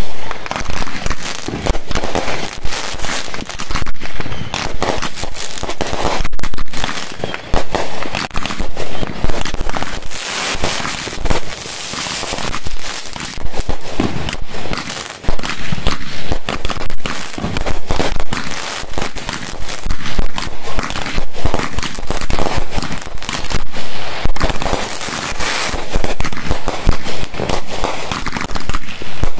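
Aerial fireworks bursting overhead one after another in a continuous barrage: loud bangs in quick succession mixed with crackling, with no let-up.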